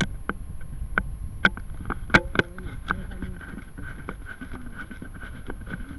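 Wind rumbling on the small microphone of a rocket's onboard camera, with a handful of sharp clicks or knocks in the first two and a half seconds and a faint steady high hum after them.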